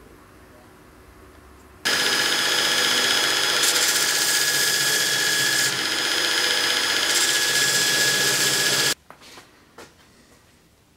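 Belt grinder running and grinding the dagger's hilt, a loud steady grinding with a constant whine; it starts suddenly about two seconds in and cuts off about two seconds before the end, followed by a couple of faint knocks.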